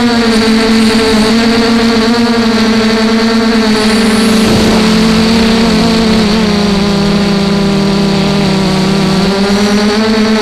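FPV quadcopter's brushless motors and propellers whining steadily as it flies, heard through the onboard camera. The pitch drops slightly about four and a half seconds in as the throttle eases, and rises again near the end.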